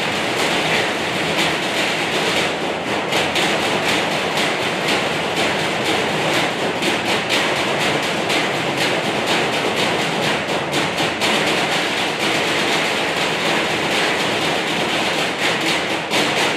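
A row of players drumming on galvanized metal trash cans, a dense, steady metallic clatter of many rapid strokes with no break.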